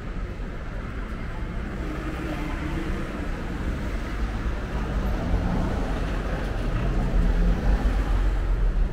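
City street ambience: a steady low rumble of traffic that grows louder over the last few seconds.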